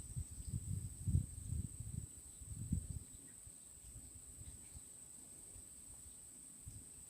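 A steady, high-pitched insect drone, with a run of low muffled thumps and rumbles during the first three seconds that then die away.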